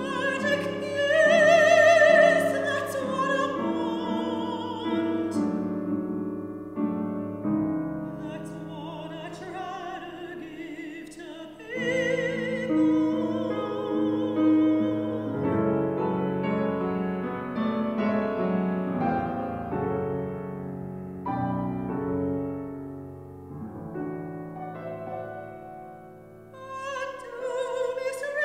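Soprano singing an opera aria with a wide vibrato, accompanied by a Steinway grand piano. Her phrases are sustained, and the music grows quieter near the end before she begins a louder phrase.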